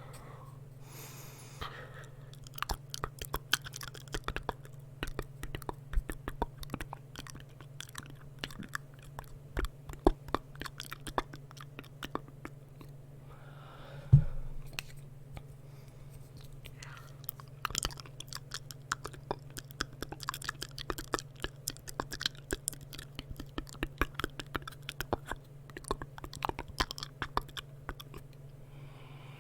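Close-miked ASMR mouth sounds: a dense run of quick, wet lip and tongue clicks and smacks, with one sharp loud knock about halfway through. A steady low hum sits underneath.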